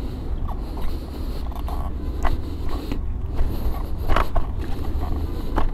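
Lenovo M2 electric scooter being ridden in its second speed mode, at about 16 km/h: a steady low rumble of wind and road on the microphone, with a few brief sharp noises, the loudest about four seconds in.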